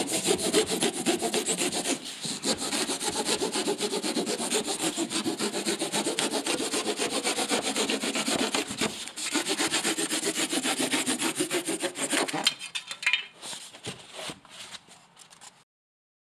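Narrow-bladed hand saw cutting through a gray panel with quick, steady back-and-forth strokes, pausing briefly twice. About three-quarters of the way in the sawing stops, leaving a few scattered knocks and rustles.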